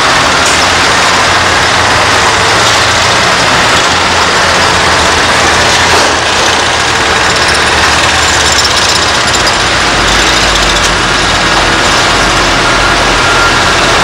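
Diesel tipper truck engines running amid steady, loud construction-site machinery noise. The low engine note changes about six seconds in and drops lower and stronger about ten seconds in.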